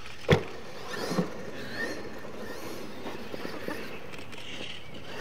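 Radio-controlled scale monster truck landing from a jump with a sharp thump, a smaller knock about a second later as it bounces, then driving on across the dirt with its motor and tyres running.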